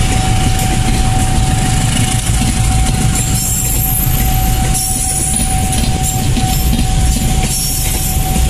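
Passenger coaches of a diesel-hauled KAI train rolling past close by: a steady low rumble of wheels on the rails with some clickety-clack, under a thin steady high tone. Faint high squeals come in about three seconds in.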